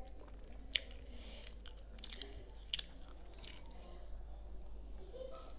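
Close-miked eating: a person biting into and chewing pav dipped in bhaji, with wet mouth noises and a few sharp clicks and smacks.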